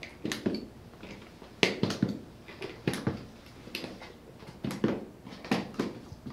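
Latches on a hard plastic rifle case snapping open one after another: a series of sharp plastic clicks and snaps.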